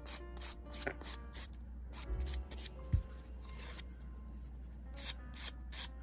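A nail file rasping back and forth across a clear plastic nail-extension tip in a string of short, irregular strokes. There is a dull knock about three seconds in.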